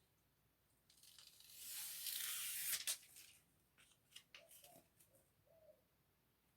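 Fiberglass window-screen repair tape being handled: a tearing, rustling peel, like adhesive backing being pulled off, building over about two seconds and ending near the three-second mark, followed by light crinkles and ticks.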